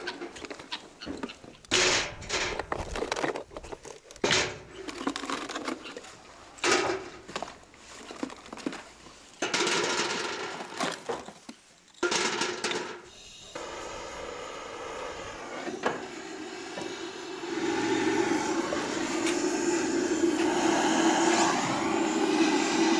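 Cardboard rustling and tearing and short knocks as charcoal briquettes are dropped into wire baskets set in metal buckets. About halfway through, a handheld butane blowtorch starts with a steady hissing flame that grows louder toward the end as it is held on the charcoal to light it.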